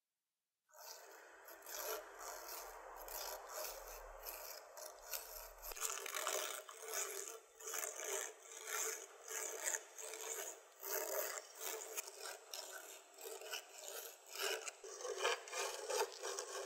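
A hand file rasping across the metal of aviation snips in repeated strokes, starting about a second in.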